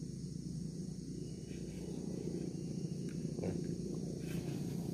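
A steady low rumble, with a few faint clicks about three and a half and four and a half seconds in.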